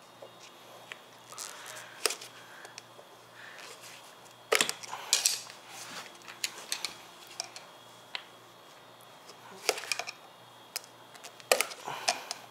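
Metal pry tools clinking and scraping against an electric scooter's hub-motor wheel rim as a tight tire bead is levered on by hand, with a few sharp irregular clicks and knocks.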